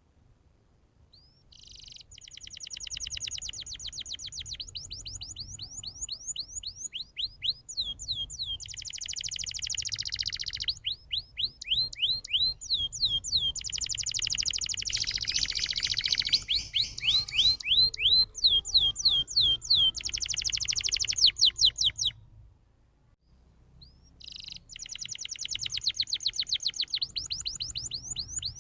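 Domestic canary in full song: fast, continuous phrases of rapid trills and quickly repeated sweeping notes. The song starts about two seconds in and breaks off briefly near the end before resuming.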